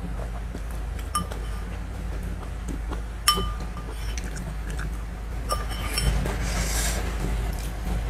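Metal spoon clinking against a white ceramic soup bowl while eating: three sharp ringing clinks, about one second, three seconds and five and a half seconds in, the middle one loudest.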